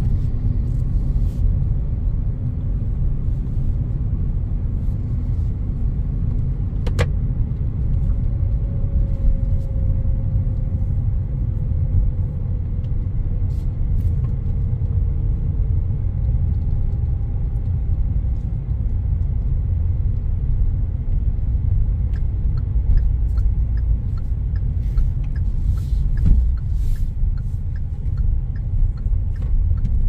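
Cabin noise of a 2024 Hyundai i20 on the move: a steady low road-and-engine rumble, with a faint tone sliding down in pitch through the first half. In the later part a light, regular ticking comes in, about two ticks a second.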